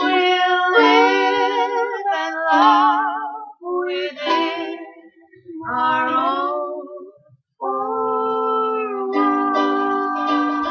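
Music: two voices singing long held notes with vibrato, in phrases with short breaks, over a strummed ukulele.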